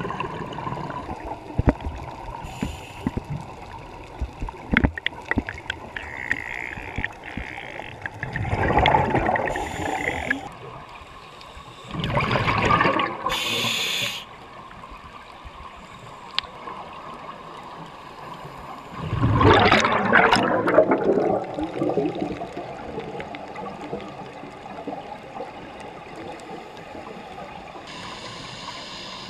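Scuba regulator exhaust bubbles gurgling underwater in three bursts of about two seconds each, a few seconds apart, as the diver breathes out. Between them there are thin crackling clicks over a steady underwater hiss.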